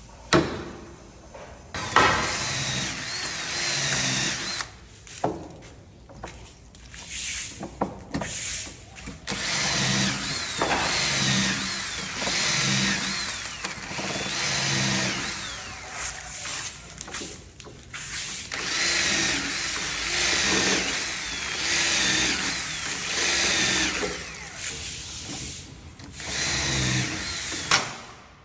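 Cordless drill running in spells with short pauses, boring pilot holes and driving hinge screws into the edge of a teak door. Near the start come a couple of sharp knocks from a chisel being struck.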